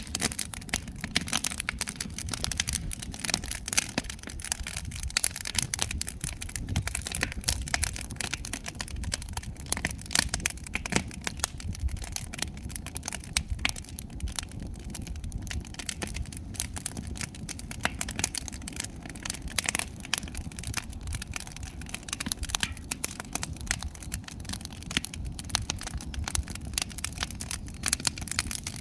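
Burning firewood crackling, with many irregular sharp pops and snaps over a low steady rumble.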